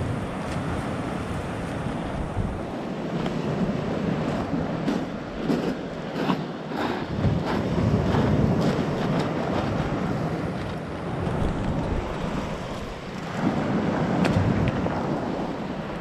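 Sea waves washing onto the shore, swelling twice, with wind buffeting the microphone.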